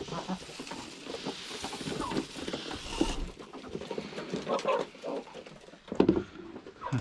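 A flock of chickens and ducks eating scattered wheat and barley, a busy patter of pecking and dabbling beaks on grain and floor, with a hiss of grain poured from a scoop in the first few seconds. A heavier thump comes about six seconds in.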